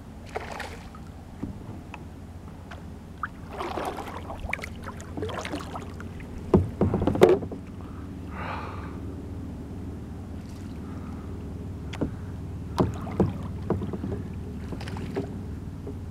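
Knocks and bumps on a kayak hull over a steady low wash of water and wind, with a cluster of louder knocks about seven seconds in and a few more near the end.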